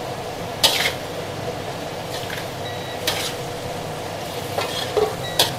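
Vegetables and fried tempeh sizzling in a wok while a spatula stirs them, scraping against the pan several times.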